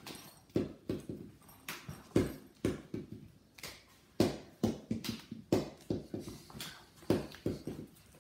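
Balls dropped onto the floor and bouncing, again and again: each a loud first hit followed by a few quicker, fading bounces.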